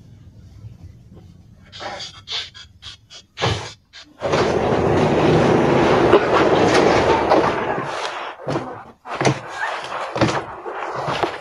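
Stepping off a tram: a few knocks and thuds at the door, then about four seconds of loud rushing noise, then shorter irregular rustling bursts.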